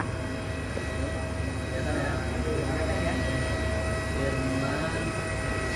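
Steady low rumble with a thin, even high whine from a jet airliner's turbine running, with faint voices in the background.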